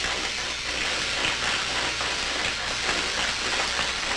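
A steady crackling hiss over a low hum on an old black-and-white film soundtrack. It starts and stops abruptly with the film clip.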